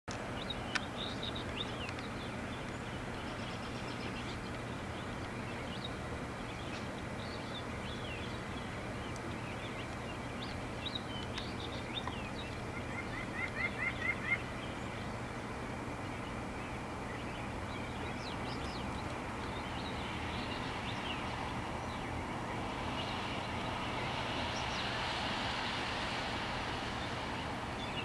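Small songbirds chirping and calling here and there over a steady background hiss; about 13 seconds in, a quick run of six or so rising notes is the loudest sound. A broad hiss swells in the last few seconds.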